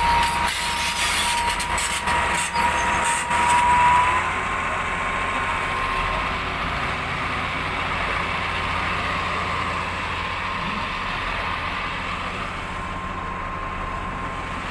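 Heavy earth-moving machinery, a wheel loader and an excavator, running with a steady low engine rumble and a steady high whine that steps up slightly about four seconds in. Several sharp metallic knocks come in the first few seconds.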